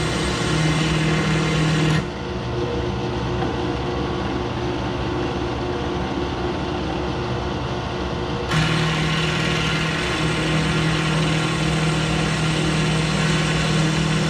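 Electric drill running steadily at about 1200 RPM, its bit boring a mounting hole. The higher cutting noise drops away abruptly about two seconds in and comes back about six seconds later, over a steady motor hum.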